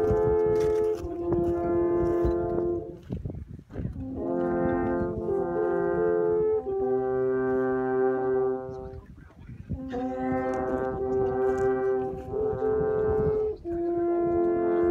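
Three alphorns playing together: long held notes sounding in harmony, in phrases with short breaks about three and a half seconds in and again near ten seconds.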